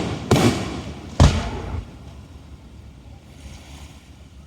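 Aerial fireworks shells bursting: two sharp booms a second apart, the second louder, each followed by a trailing rumble that dies away.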